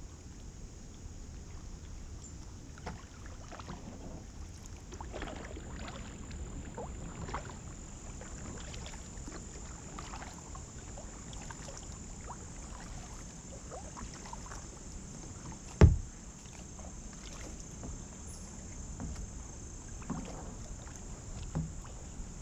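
Kayak paddle strokes through calm creek water: irregular dips, drips and small splashes every second or two. There is one sharp, loud knock about sixteen seconds in.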